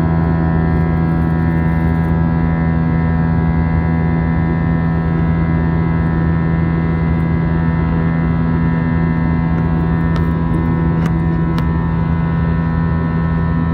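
Steady drone of an Airbus airliner's jet engines and cabin air heard from inside the cabin during the climb, with several steady humming tones over a low rushing noise.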